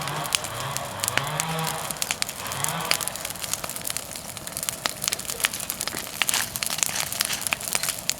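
Bonfire of persimmon wood crackling, with many sharp irregular pops and snaps. In the first three seconds a low droning tone rises in pitch twice, then fades, leaving only the crackling.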